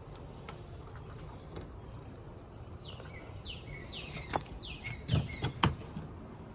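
A bird singing a run of quick falling chirps, about three a second, starting partway through. Three sharp knocks near the end.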